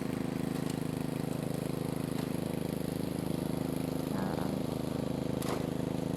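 Small gasoline engine running steadily at constant speed, with a few faint clicks over it.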